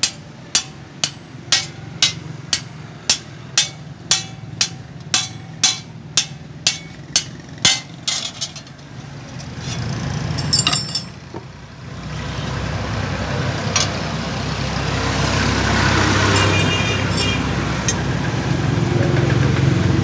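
Hand hammer striking a steel fodder-cutter blade on an anvil, sharp ringing blows about twice a second, as the blade is peened to sharpen it. The hammering stops after about eight seconds, and a steady rumbling noise rises through the rest.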